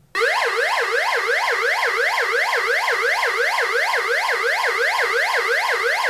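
UM3561 siren-generator IC in its police-siren setting, driving a loudspeaker through a TIP122 transistor. It makes an electronic siren tone that sweeps quickly up and down, about four times a second, at a steady level.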